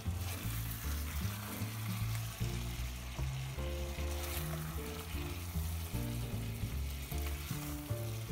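Fish and vegetables sizzling in a wok as they are stirred and turned with a wooden spatula, over background music of changing low notes.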